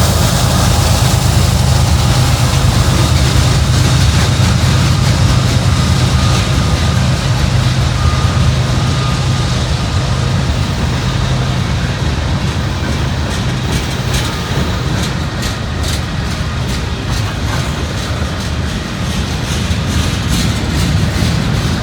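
A single CSX diesel-electric locomotive working hard under a long freight train as it passes, its engine's deep drone strong for the first twelve seconds or so, then the freight cars rolling by with the clicking of wheels over rail joints.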